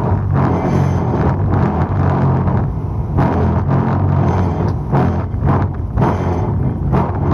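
A squid-fishing boat's engine running steadily at a low, even pitch, with irregular bursts of rushing noise over it.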